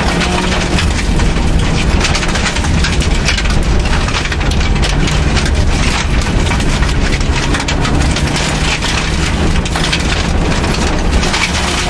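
Suzuki Swift rally car at speed on a gravel stage, heard from inside the cabin: the engine running hard while gravel and stones rattle and clatter constantly against the underside and wheel arches.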